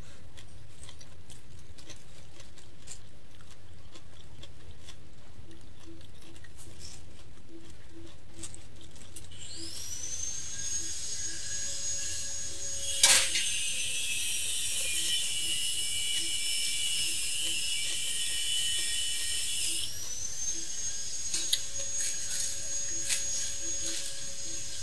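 A small high-speed motor whines, its pitch rising as it spins up about ten seconds in, then holding steady for about ten seconds with one sharp click partway through. It stops and spins up again near the end at a different pitch; before it there are only faint small clicks.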